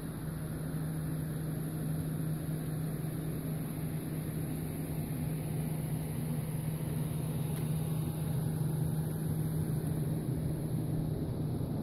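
Steady mechanical hum with a strong low tone and an even hiss over it, unchanging throughout.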